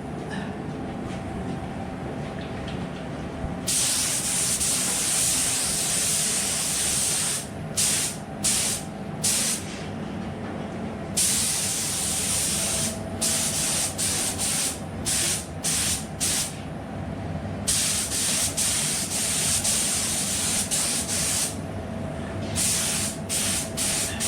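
Paint spray gun spraying in bursts: several long hissing passes of a few seconds each, alternating with runs of short, quick trigger pulls, over a steady low hum.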